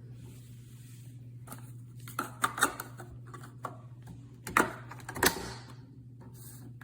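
A few sharp clicks and knocks over a steady low hum.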